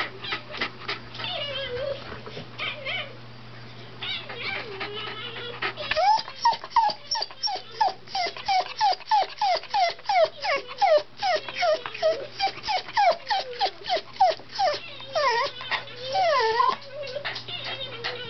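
Wire fox terrier whining: from about six seconds in, a rapid run of short, rising whimpers, about three a second, ending with a few longer wavering whines. Before that there are only softer clicks and faint sounds.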